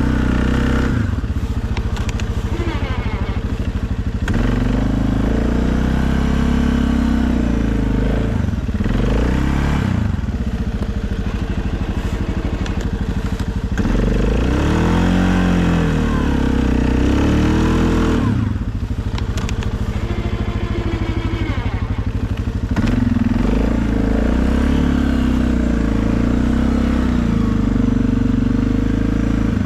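2020 Suzuki KingQuad ATV engine running, its speed rising and falling several times as the quad works through the snow.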